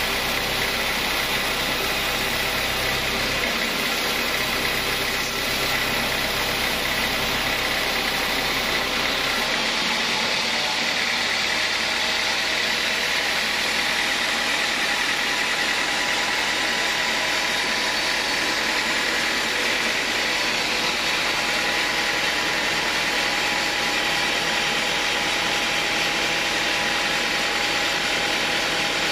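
Band sawmill running steadily, its blade sawing lengthwise through a large acacia hardwood log: continuous machine noise with a high, even tone running through it. The low rumble underneath drops away about ten seconds in.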